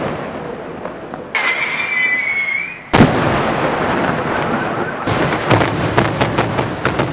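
Daylight fireworks going off: a dense crackling rumble with a whistling tone about a second in, a sharp bang about three seconds in followed by more crackling, then a rapid string of sharp cracks near the end.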